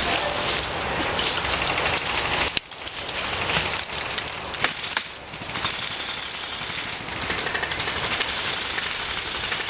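Airsoft electric guns firing long full-auto bursts, a fast mechanical rattle that breaks off briefly about two and a half and five seconds in.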